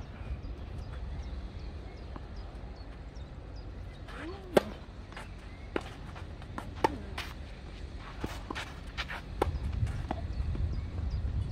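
Tennis ball struck by racquets and bouncing on a clay court during a rally: a string of sharp pocks starting about four seconds in, roughly one a second, the first the loudest.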